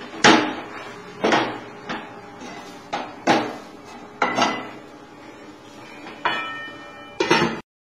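A spoon knocking and scraping against a stainless steel pan while stirring a stiff flour-and-milk dough: a run of sharp clanks at uneven intervals, one with a ringing metal tone about six seconds in. The sound cuts off suddenly shortly before the end.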